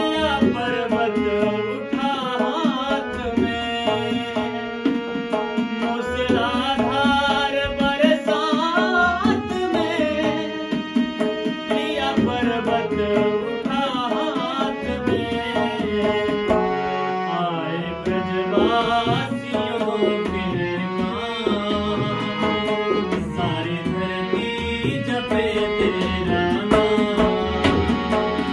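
Harmonium and tabla playing a Hindi devotional bhajan, with a man singing the melody over a running tabla rhythm.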